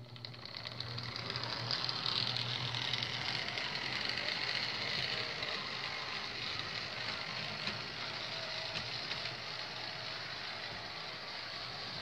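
Life-Like HO-scale 0-4-0 saddle-tank switcher's small DC motor and gear train whirring with a fast rattle as it pulls away with its train at 20% throttle. It starts right away, builds over the first two seconds, then runs steadily.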